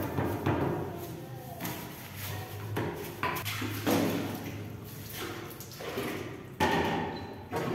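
Bristle broom scrubbing a wet tile floor, then water splashed from a plastic basin onto the floor and swept with a floor squeegee. The sound comes in several separate surges.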